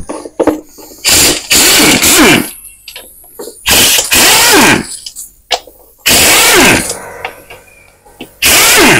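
Impact wrench with an 8 mm socket hammering in four short bursts, each ending in a falling whine as the tool spins down, while it loosens the bolts of a motorcycle crankcase. Small clicks and clatter of the tool on the case come between the bursts.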